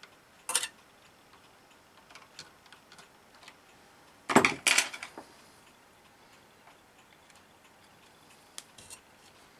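Small clicks and taps of a screwdriver and fingers against the plastic and metal parts of a Sanyo VTC-M20 Betamax loading mechanism as a new rubber belt is worked onto the motor spindle. There is one sharp click about half a second in and a louder clatter of a few knocks around four and a half seconds in.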